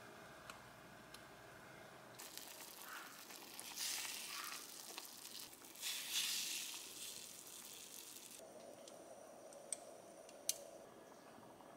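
Spicy broth in a clay pot sizzling on the stove as blocks of tofu are slid in, loudest twice in the middle. Near the end, a couple of light metal clicks from tongs.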